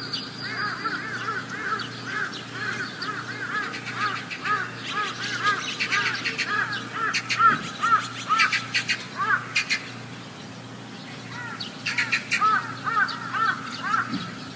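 Many birds calling at once in a dense chorus of short, rapidly repeated chirps, with sharper high-pitched calls mixed in. The chorus thins to a brief lull about ten seconds in, then picks up again.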